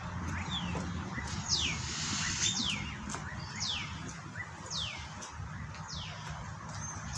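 A bird calling: a high whistle that slides downward, repeated about once a second, with short chirps in between, over a steady low rumble.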